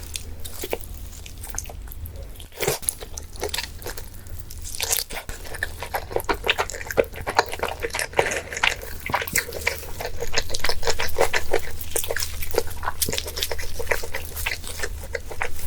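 A dog eating close to the microphone: wet chewing and crunching bites in quick, irregular clicks that grow louder and denser about two-thirds of the way through.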